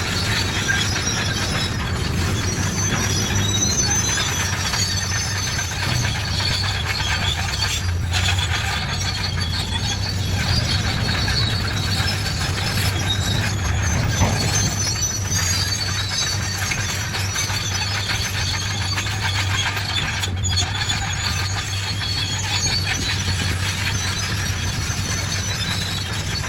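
Crawler bulldozer working: a steady low diesel engine hum under continuous clanking and high squealing from its steel tracks.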